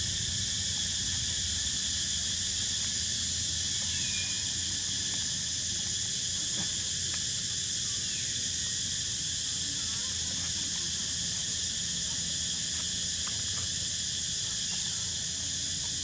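Steady, high-pitched drone of an insect chorus, with a few faint short chirps now and then.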